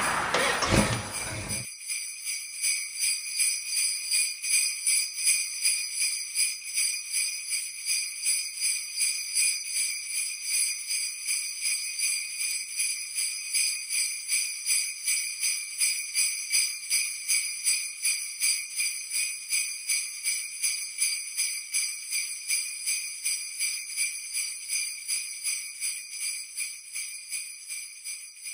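Sleigh bells jingling in a steady rhythm, about two to three shakes a second, fading out near the end.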